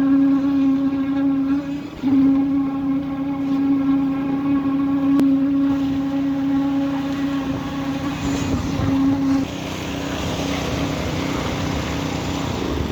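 Machinery on a concrete pour running with a steady high hum and overtones. The hum breaks off briefly about two seconds in and stops about two-thirds of the way through, leaving a rougher rushing noise.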